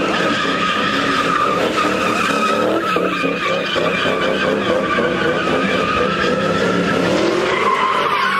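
Ford Mustang doing donuts, its tires squealing without a break over the running engine.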